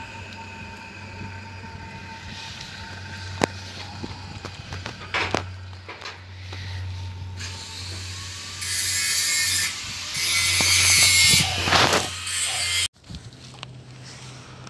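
Steady low machine hum with a few sharp clicks. Two loud stretches of hiss come in the second half, and the sound cuts off abruptly near the end, after which a quieter hum continues.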